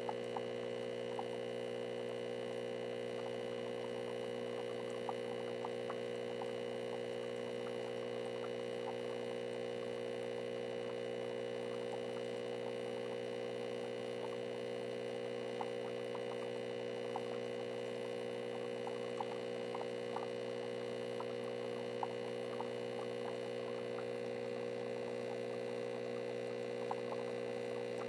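A steady hum made of several steady tones, with faint small ticks scattered through it.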